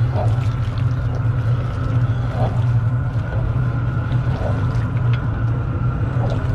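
Propane burner under a large cast-iron stew kettle running with a steady low roar.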